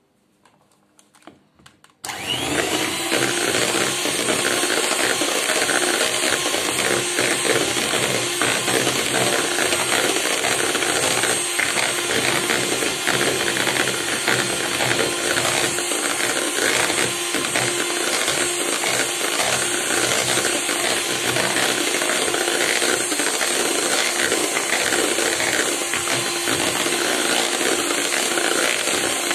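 Electric hand mixer switched on about two seconds in, after a few faint handling knocks, then running steadily at speed with its twin beaters whipping cream in a bowl, a constant motor whine over the swishing of the cream.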